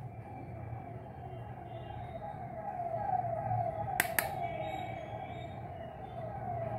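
Faint siren outside, its pitch sweeping downward over and over in quick repeats, with one sharp tap about four seconds in.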